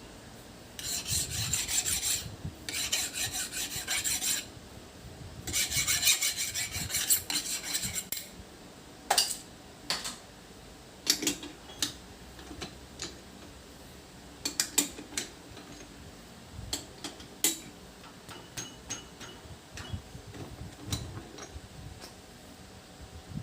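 Hand file rasping across a metal workpiece in three runs of quick back-and-forth strokes during the first eight seconds, followed by scattered light clicks and taps.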